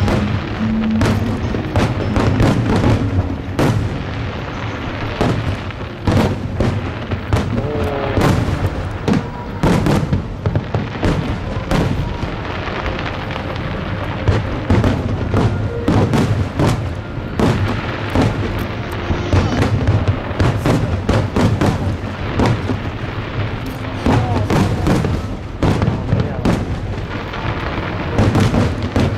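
Aerial fireworks bursting in rapid, overlapping volleys of booms and crackles, with music playing steadily underneath.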